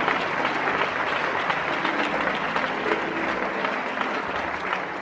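A large congregation applauding: a dense, continuous patter of many hands clapping, easing slightly near the end.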